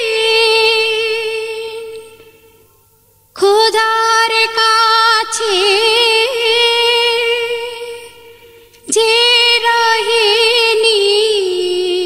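A high female voice singing a wordless vocal interlude of a Bangla naat, holding long ornamented notes that waver in pitch. It comes in three phrases with short pauses between them, the second starting about three seconds in and the third about nine seconds in.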